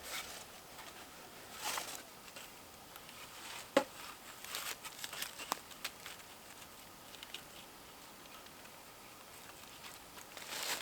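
Scattered light rustles and clicks, with one sharper knock about four seconds in and a louder rustle near the end.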